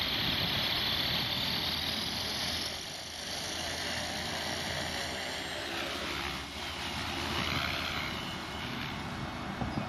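Walkera V370D05 electric RC helicopter running its main and tail rotors: a steady high motor whine with rotor blade noise, shifting in pitch and level a few times as it spins up and lifts off. A few light taps near the end.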